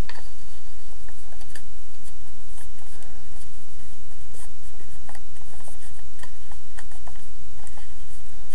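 Hand-packing a trading card for mailing: scattered scratching, rubbing and small ticks of paper and card being handled, over a steady low hum.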